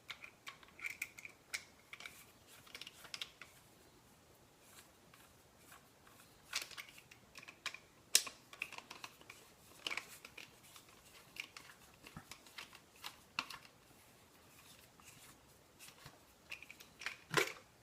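Screwdriver working screws out of a shotgun stock's rubber butt pad: scattered small clicks and scrapes, with a few short squeaks early on and a louder clack near the end.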